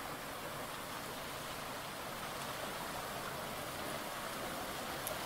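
Heavy rain pouring down in a steady, even hiss, mixed with running water.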